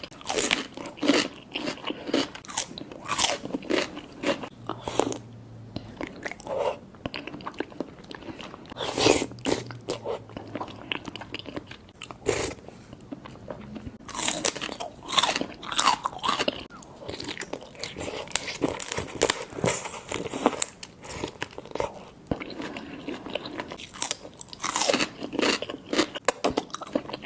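Close-miked eating of a shrimp seafood boil: repeated bites and chewing, heard as many short, sharp, irregular sounds.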